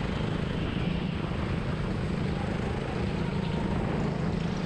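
Biz rental go-kart's engine running steadily under way, heard from onboard the kart: a constant low drone that holds its pitch.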